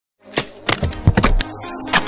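Electronic intro music that starts after a moment of silence, with a rapid run of sharp clicks and hits over held tones and a loud hit near the end.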